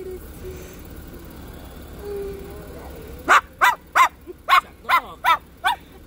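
Moluccan cockatoo doing its dog impression: a quick run of about eight loud, high-pitched barks, about three a second, starting about three seconds in.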